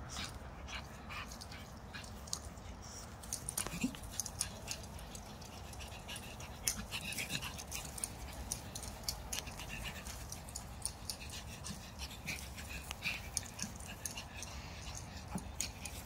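A pug making small dog sounds as it chases and plays with hens on grass, amid many short rustles and clicks.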